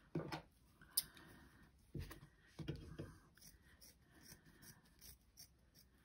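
Faint rustling of cotton fabric being handled and laid flat over linen on a table, with a few short rustles and soft bumps in the first three seconds, then quieter scuffling.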